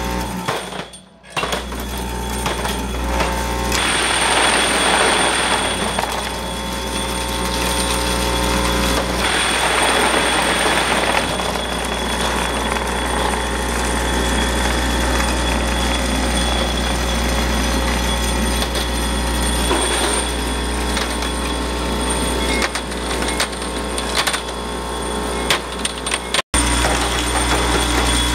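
Vibratory parts feeder running with a steady electric hum while metal rods rattle and clatter as they are shaken along its tray and hopper, with louder spells of clatter. The sound drops out briefly twice.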